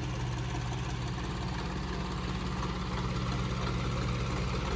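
Sonalika DI-35 tractor's diesel engine running steadily at low speed with an even chugging pulse, getting a little louder near the end.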